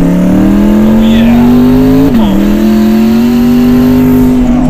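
Hennessey twin-turbo 6.2-litre LT2 V8 of a 2020 C8 Corvette accelerating hard under full throttle. Its pitch climbs, drops sharply at an upshift about two seconds in, then climbs again.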